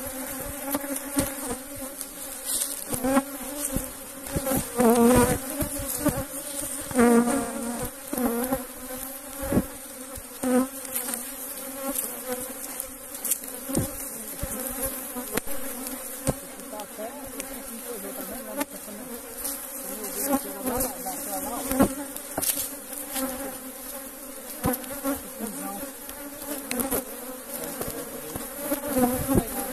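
Honeybees buzzing around an opened hive in a steady, dense hum, with occasional sharp clicks and knocks.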